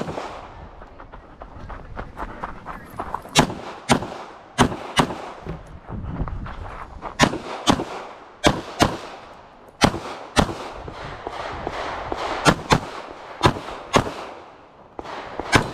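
Semi-automatic pistol fired rapidly, about sixteen sharp shots, mostly in quick pairs with pauses of a second or two between them.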